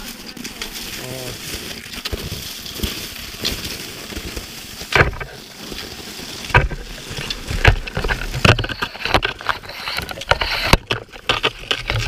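Footsteps crunching through crusted snow, irregular and roughly one a second, starting about five seconds in.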